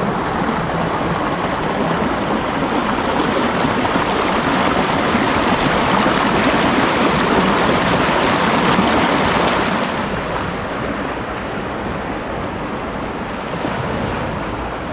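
Seawater surging and rushing in a steady foaming wash over shoreline rocks; about ten seconds in it changes to a softer wash of small waves breaking on the shore.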